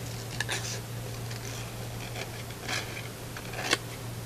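Scissors snipping through black construction paper, a few short separate cuts with the paper rustling as it is turned.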